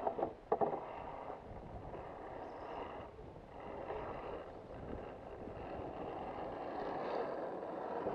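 Radio-controlled Axial SCX10 rock crawler's electric motor and gears whirring as it crawls over rock, with sharp clicks and knocks of the truck on stone in the first second. The whir grows a little louder near the end as the truck drives past.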